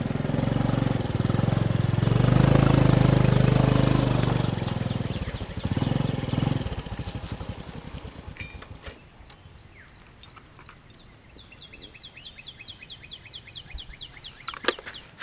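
A motor vehicle passes close by, loudest a few seconds in and then fading away. Near the end a bird calls a quick run of short repeated notes.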